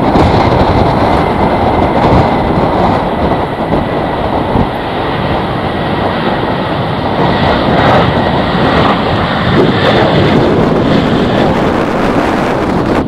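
Jet airliner engines running loud and steady, with a thin high whine that sinks slowly in pitch. Strong wind buffets the microphone.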